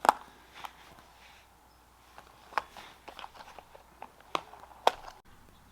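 Handling noise: a sharp knock at the start, then scattered light clicks and taps, a few louder ones about two and a half seconds in and near the end.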